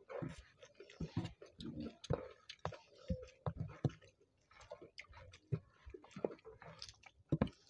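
Close-up eating sounds from two people eating rice by hand: chewing with irregular wet smacks and clicks, several each second.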